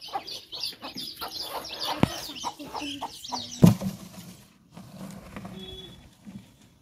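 Chickens clucking and chicks peeping in quick short calls, with two sharp knocks, the second the loudest sound. About four and a half seconds in it all drops away to a much quieter stretch.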